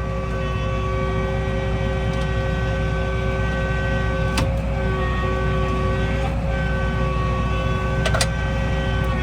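Farm tractor running steadily while straw is spread for bedding, a constant engine drone with a whine over it that shifts in pitch a few times, and two sharp clicks, one midway and one near the end.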